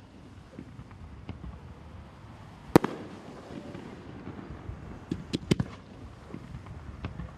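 Aerial firework shells bursting, each a sharp bang. A single loud bang comes about three seconds in, then three quick bangs around five and a half seconds, with fainter pops between.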